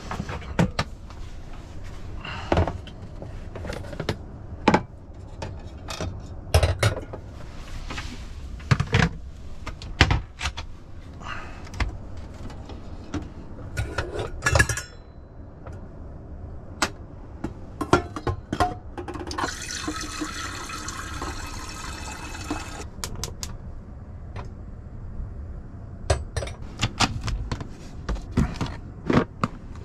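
Kitchen handling sounds in a camper van: a run of clicks, knocks and clinks as cupboard doors are opened and a metal coffee pot is handled on the gas hob. About twenty seconds in, water runs for roughly three seconds, as if filling the pot.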